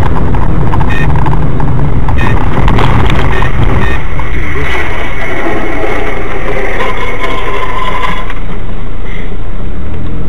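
Loud, continuous vehicle and road noise with a few short knocks; the sound changes character about eight seconds in.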